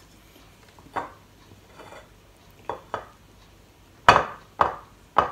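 A wooden rice paddle knocking and scraping against a stainless-steel pot while scooping rice. There are six sharp knocks, each with a short metallic ring, and the three loudest come close together near the end.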